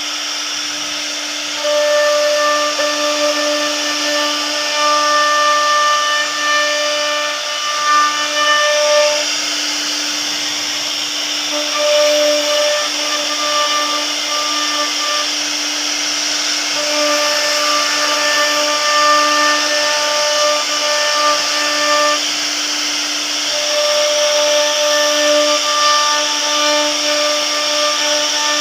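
CNC router spindle running and cutting a wooden door panel: a steady high whine under a hiss of cutting, with a higher-pitched tone that comes and goes in stretches of a few seconds as the bit works through the wood.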